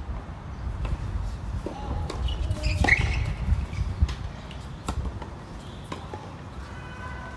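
Tennis rally: rackets striking the ball back and forth, a sharp pock about every second, the loudest about three seconds in and again two seconds later. A steady low rumble of wind on the microphone runs underneath.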